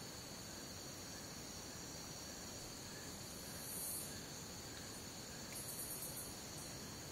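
Rainforest night ambience: a steady high-pitched chorus of crickets and other insects, with a soft lower chirp repeating about twice a second. Two brief, louder, very high buzzes stand out, one about halfway through and a pulsing one near the end.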